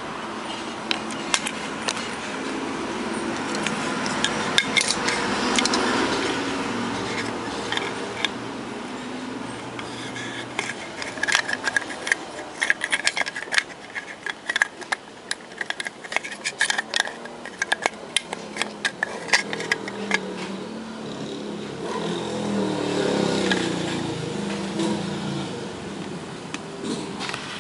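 Clicks, knocks and scraping of a Kadosh K4.1M wireless handheld microphone's plastic body and circuit board being handled on a workbench, with a dense run of sharp clicks in the middle, over a background rumble that swells twice.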